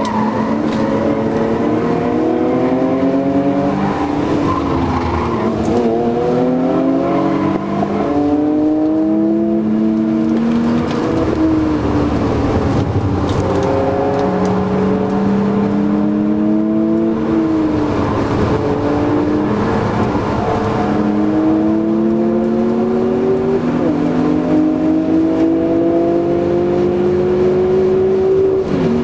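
BMW Z3 2.8's straight-six engine heard from inside the cabin, pulling hard through the gears on a racetrack. Its pitch climbs under acceleration and drops back at each gear change, over and over.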